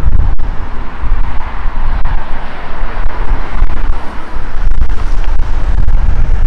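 Strong wind buffeting the microphone, a heavy, fluctuating rumble, with road traffic passing on the bridge road alongside.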